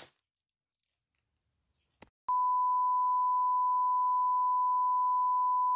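Television colour-bars test tone: after about two seconds of silence and a faint click, a steady single-pitch beep starts and holds without change, the signal of a broadcast gone off air.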